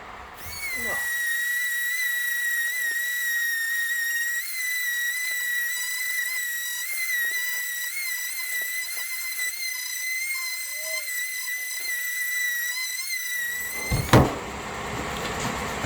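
Electric random orbital sander running steadily on a clogging sanding disc, heard as a high-pitched whine that wavers slightly. It starts about half a second in and stops about two seconds before the end.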